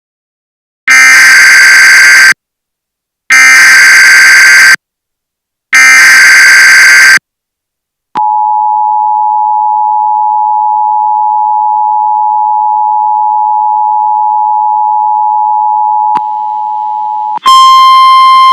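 Emergency Alert System SAME header: three bursts of shrill, screechy digital data tones, each about a second and a half, signalling the start of a new alert. They are followed by the EAS two-tone attention signal, a steady dual tone held for about nine seconds. It drops in level shortly before a louder, harsher sound cuts in near the end.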